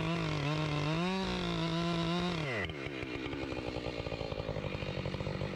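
Husqvarna 592 XPG two-stroke chainsaw running at high revs with a wavering, slightly rising pitch, then dropping back to a steady idle about two and a half seconds in.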